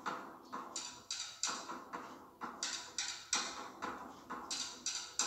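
Drum music with a steady rhythm of sharp strikes, about two to three a second.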